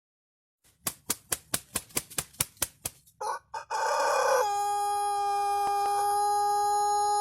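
Chicken meme sound effect: about ten quick, sharp clucks, a short harsh squawk, then a long, steady, unwavering held note like a drawn-out crow.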